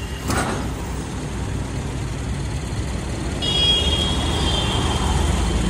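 Steady low rumble of a motor vehicle on the road, with a single sharp knock about a quarter second in. A thin high-pitched tone starts about three and a half seconds in and lasts a second and a half.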